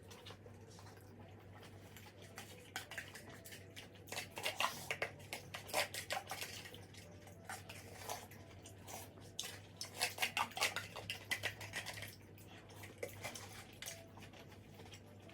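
Cutlery clinking and scraping against dishes while eating. The sharp clicks come in clusters, densest from about four to twelve seconds in.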